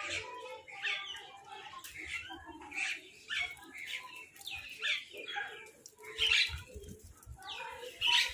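Crows and mynahs calling over one another in a steady run of short calls, many sliding down in pitch, with a few low thumps about six seconds in.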